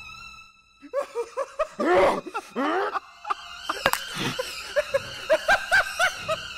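A person laughing in quick repeated bursts, starting about a second in, with a sharp click about four seconds in.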